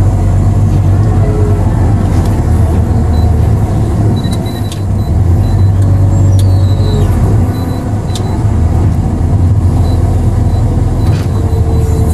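A vehicle engine running steadily, a loud, even low hum, with a few faint clicks.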